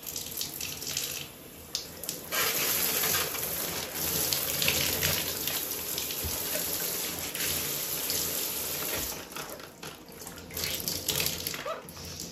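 Water spraying from a hand-held shower head into a bathtub, a steady hiss from about two seconds in until around nine seconds, as the freshly descaled head is rinsed through to flush out loosened limescale. Light clicks and knocks of handling come before and after the flow.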